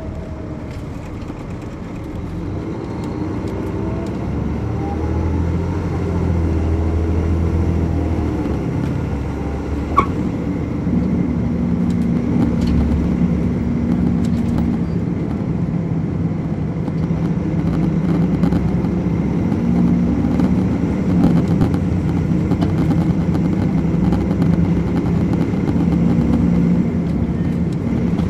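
2007 MCI D4500CL coach's Caterpillar C13 ACERT diesel engine heard from on board, pulling away and accelerating, with pitch rising over the first several seconds. It then runs on steadily and louder at speed. A single sharp click comes about ten seconds in.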